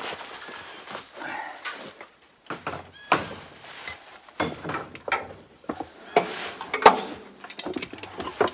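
Irregular metal clanks and knocks of a lug wrench and jack being handled at a tractor's rear wheel, with footsteps rustling through dry leaf litter.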